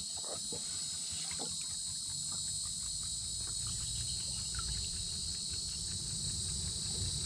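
A steady, high-pitched droning chorus of cicadas in the midday heat, with a low rumble underneath that swells in the middle, from water moving against the camera at the pool's surface.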